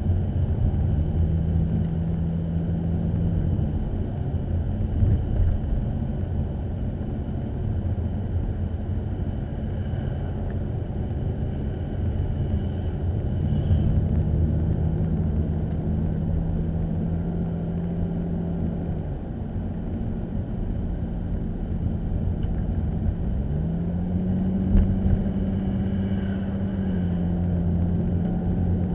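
Vehicle driving with a steady low road rumble and a level engine hum. The hum dips and settles at a new pitch twice in the latter part.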